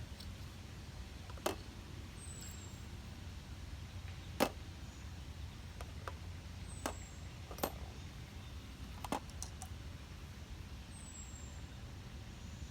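Sharp clicks of tic-tac-toe game pieces being set down, five or six spread a second or two apart, over a steady low rumble. Short high falling chirps come three times.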